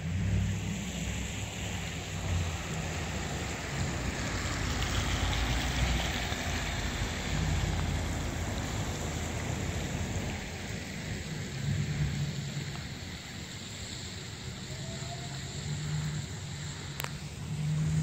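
Gusty wind rumbling on a phone's microphone over a steady rushing hiss, just after a powerful wind storm. A sharp click comes near the end.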